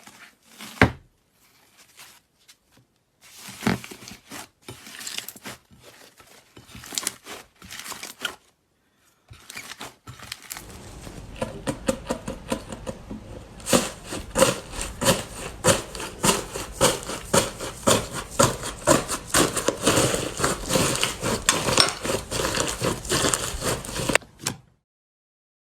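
Crunchy iceberg slime, its dried top crust cracking and crunching as it is pressed and broken. There are short, scattered groups of crunches at first, then a dense run of rapid crackling that cuts off suddenly near the end.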